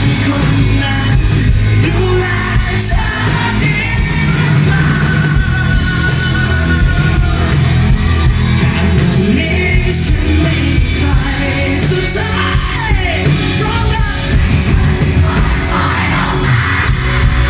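Live pop-rock band playing at full volume: a male singer singing into a handheld microphone over electric bass, keyboard and drums.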